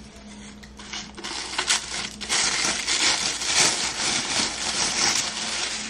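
Plastic packaging crinkling and rustling as a leather desk pad is unwrapped and unrolled, a scratchy crackle that grows louder about two seconds in.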